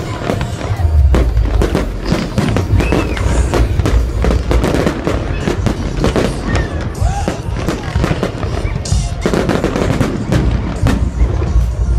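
Fireworks going off in quick succession: many sharp cracks and crackles over deep booms, heaviest about a second in and again near the end.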